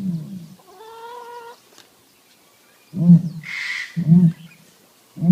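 Ostrich calls: several short, low, resonant calls with one higher held call among them, and a brief hiss between the low calls.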